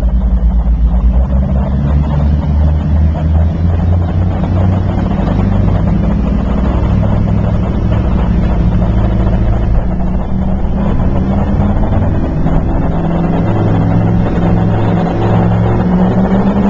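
High-performance speedboat engine running hard at high speed. It holds a steady, loud drone, and its pitch climbs a little near the end.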